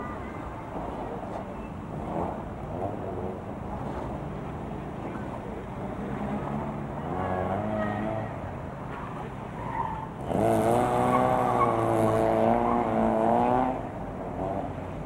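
Mk1 Ford Escort rally car driven hard on a loose surface: the engine revving under load, with tyres skidding. It is loudest for about three and a half seconds starting about ten seconds in.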